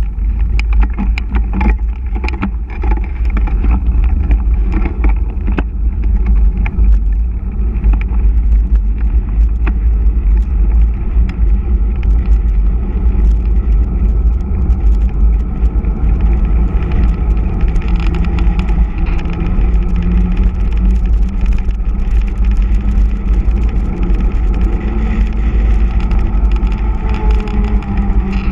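Heavy wind buffeting on the microphone of a handlebar-mounted camera on a mountain bike descending fast, with the rush of all-terrain tyres on asphalt. A faint hum comes in during the second half.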